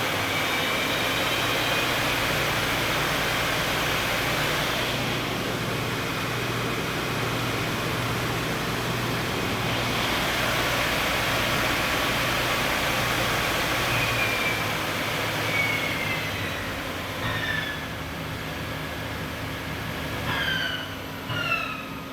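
Doosan Puma 4100L CNC lathe's spindle running steadily at about 1650 RPM, a hum under a noisy whir. After about 16 s it winds down and grows quieter, and a few short whines slide in pitch near the end.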